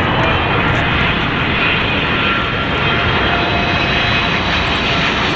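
Boeing 777 freighter's twin GE90 turbofans on approach to land: a loud, steady jet rush with faint whining fan tones.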